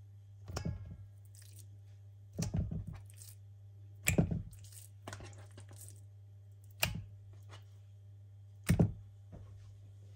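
Raw pork neck chops being dropped one at a time into a stainless steel bowl: five soft, wet slaps about two seconds apart, over a steady low hum.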